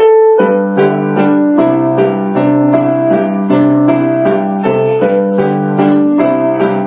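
Piano-like keyboard playing a steady tune of evenly spaced notes over held chords, the introduction to a children's song.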